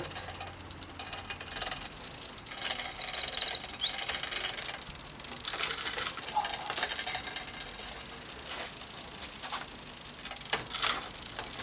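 Bicycle drivetrain turned by hand while shifting up with a trigger shifter: the chain runs over the chainrings and sprockets with steady ticking and clicking as the front derailleur moves it across. There is a cluster of short high squeaks about two to four seconds in.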